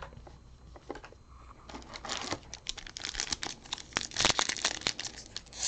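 Trading-card pack wrapper crinkling and tearing as a retail pack is opened by hand. A run of sharp crackles starts about two seconds in and gets louder near the end.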